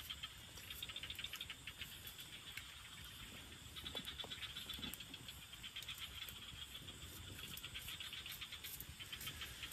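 Insects chirping in rapid, high-pitched pulsed trills that come in bouts of a second or two, overlapping into a steady chorus.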